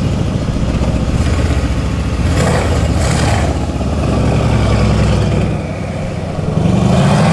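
Loud Mercedes-AMG C63 S twin-turbo V8 with aftermarket downpipes and an Fi exhaust, running at low revs as the car rolls away, then its note rising as it accelerates near the end.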